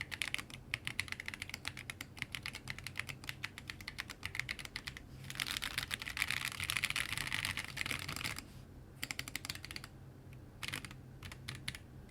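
Typing on a Lily58 split mechanical keyboard with Neapolitan tactile switches and MT3 keycaps: steady keystrokes, then a fast, dense run of keypresses about five seconds in, slowing to scattered single clicks for the last few seconds.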